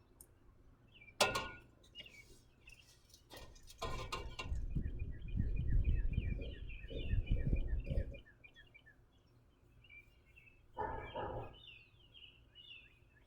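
Birds chirping in a quick run of short, evenly repeated notes. A few sharp knocks fall early on, and a stretch of low rumbling noise, the loudest thing here, runs through the middle.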